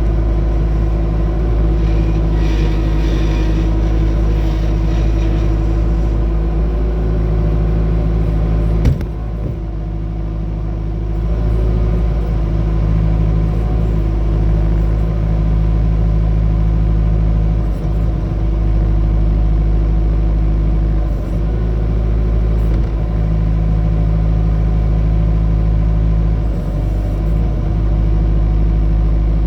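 Bobcat T250 compact track loader's diesel engine running steadily. A sharp click comes about nine seconds in, and the sound dips briefly in loudness after it.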